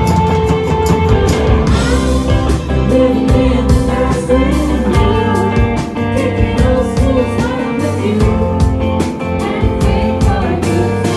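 Live indie rock band playing a groovy song: electric guitar and drum kit with a woman singing.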